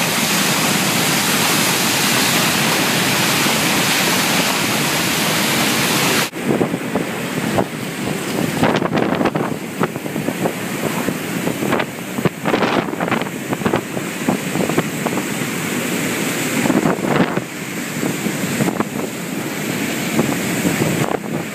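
Floodwater pouring over Scrivener Dam's fish-belly flap gates into the Molonglo River, a steady heavy roar of falling water. About six seconds in the sound changes abruptly to rushing, churning water, with gusts of wind buffeting the microphone.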